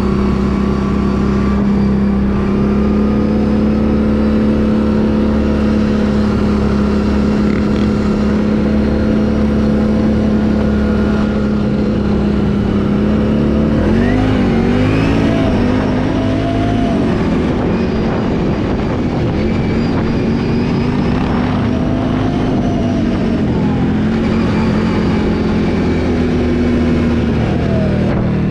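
Can-Am ATV engine running steadily under way. About halfway through, its pitch wavers up and down for a few seconds as the throttle changes, then it settles back to a steady drone.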